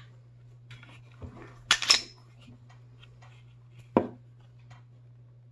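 A pistol being handled and turned over in the hands: a quick cluster of sharp metallic clicks about two seconds in, and a single knock about four seconds in, over a steady low hum.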